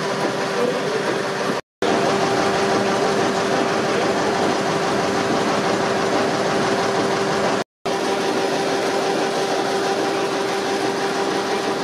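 Stationary engines running: a steady mechanical clatter with a constant hum. The sound drops out completely twice for a moment.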